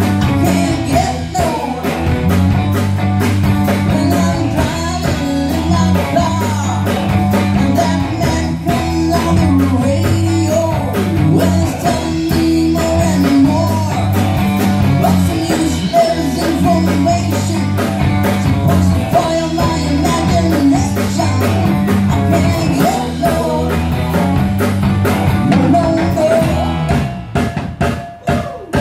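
Live rock band playing at full volume in a small bar: drum kit and electric guitars driving a steady beat, with a singer on top.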